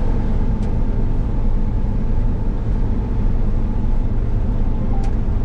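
Combine harvester running steadily while harvesting soybeans: a constant low drone of engine and threshing machinery.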